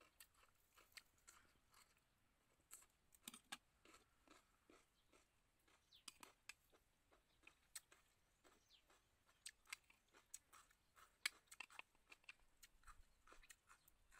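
Faint sounds of a person eating pork: chewing, with irregular sharp clicks of a metal spoon against a ceramic plate.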